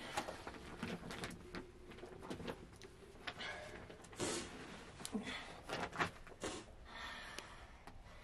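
Soft slaps, pats and taps as a sheet of naan dough is stretched and flipped between the hands, with a few short rustling bursts.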